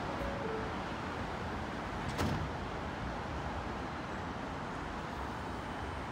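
R160B subway car's doors sliding shut, ending in a single knock about two seconds in, over the steady noise of the train standing in the station.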